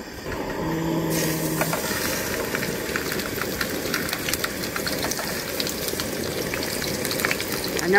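Seasoned chicken breasts being laid into hot oil in a skillet on a Jetboil Genesis propane stove, starting to sizzle and crackle about a second in. The frying then goes on steadily over the low rush of the burner.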